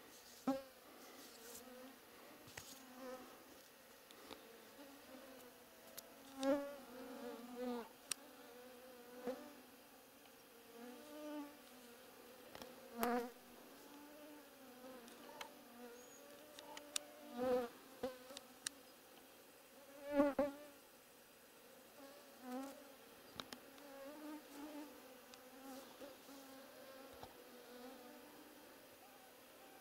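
Flying insects buzzing close to the microphone, a hum that swells, wavers in pitch and fades as they pass, several times over, with a few sharp clicks in between.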